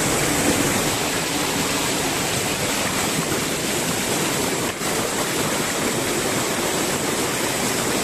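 A rocky mountain stream rushing and cascading over boulders close to the microphone, a steady loud rush of water that dips briefly once about halfway through.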